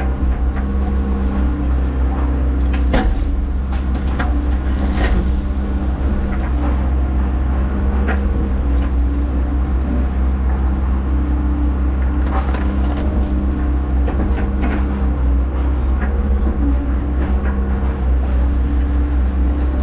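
Hyundai HX140AL excavator's diesel engine running steadily, with scattered knocks and clunks as the bucket and thumb work.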